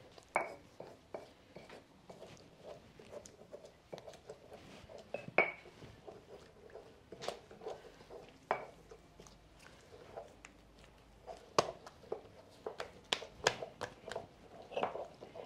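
Stone pestle knocking and grinding in a volcanic-stone molcajete, crushing onion and garlic: irregular clacks and scrapes, with a few sharp stone-on-stone clinks that ring briefly.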